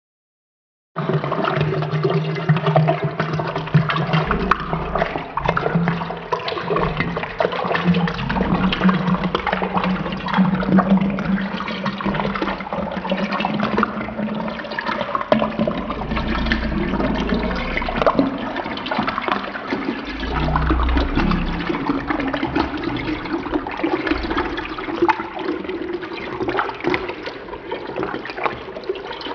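Water pouring into a tall drinking glass, splashing and bubbling steadily, played back slowed to about a third of its speed so it sounds low and drawn out. It starts about a second in.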